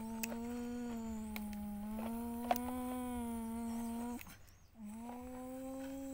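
A person humming one long steady note as a play engine noise for a toy excavator, breaking off briefly about four seconds in and starting again. Light plastic clicks and taps from the toy excavator and truck come over it, one sharper click near the middle.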